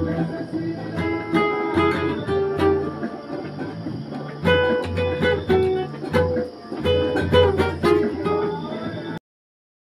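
Acoustic guitar being strummed and plucked, a run of chords and single notes. It cuts off abruptly near the end.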